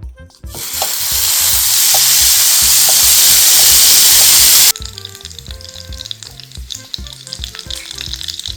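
Jjondigi snack sizzling on the hot plates of a waffle maker: a loud hiss for about four seconds that cuts off suddenly, then a quieter crackling sizzle. Background music with a steady beat plays underneath.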